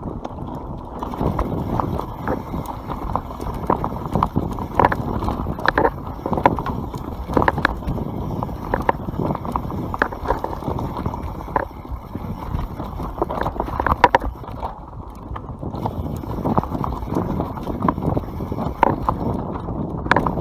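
YT Capra mountain bike riding fast down a dirt forest trail: tyres rumbling over dirt and roots, with frequent irregular knocks and clatter from the bike over bumps. The sound is muffled, with little treble.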